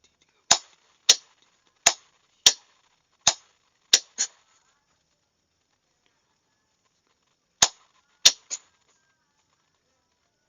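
Sharp single clicks keying out two Morse code groups: seven clicks over about four seconds, a pause of about three seconds that marks the gap between groups, then three more clicks.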